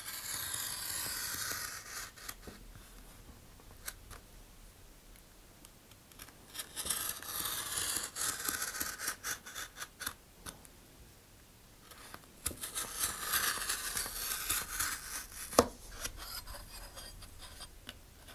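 Sharp hobby knife blade dragging through a thick paper rocket body tube along a metal straightedge, in three long scraping cutting passes with short pauses between. A sharp tap comes near the end of the last pass.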